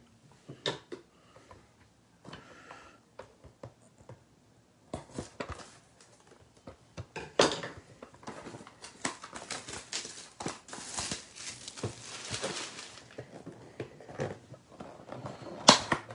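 A sealed Topps WWE Fully Loaded 2021 trading card box being opened and handled: scattered taps and clicks, then from about five seconds in, dense rustling and crinkling of cardboard and wrapping, with a few sharper clicks.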